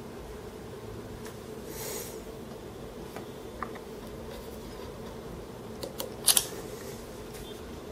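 Steady low room hum with a soft rustle about two seconds in, a faint click a little later, and a quick cluster of sharp clicks about six seconds in.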